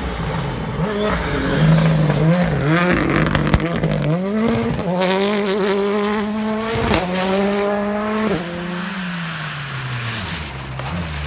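Rally car engine revving hard, its pitch jumping up and down for the first few seconds, then climbing and holding high under full throttle, with sharp cracks along the way. A bit past halfway the note drops abruptly and slides lower as the car eases off and moves away.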